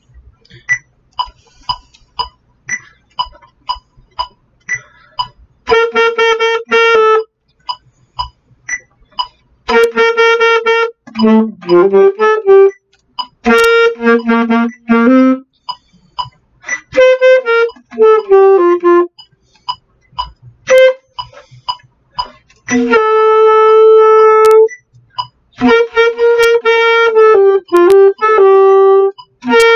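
Alto saxophone playing a passage at speed in short phrases with gaps between them, mostly on one middle note with quick runs up and down and a few lower notes. Short evenly spaced ticks sound in the gaps, most clearly in the first few seconds.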